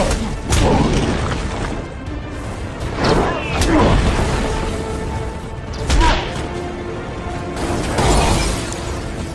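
Action-film soundtrack of a superhero fight: dramatic music under several heavy booms and crashes of impacts and smashing wreckage, the loudest hit about six seconds in.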